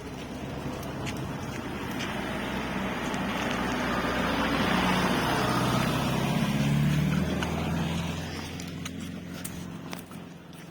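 A car drives past: its engine hum and road noise build up, are loudest about halfway through, then fade away.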